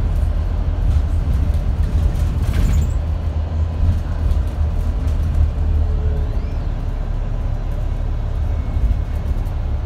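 Wright StreetDeck double-decker bus heard from inside the upper deck while driving: a steady, loud low engine drone with road and body noise.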